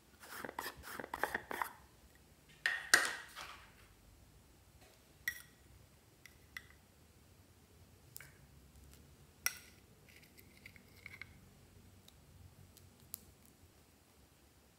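Small plastic cosmetic containers and a spatula being handled: a quick clatter of clicks, then a louder sharp snap about three seconds in. After that come scattered light clicks and taps, with a brief scrape near the middle.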